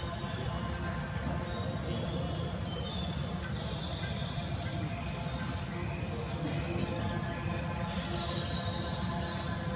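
Steady chorus of insects, a high even buzzing that never breaks, over a low steady rumble.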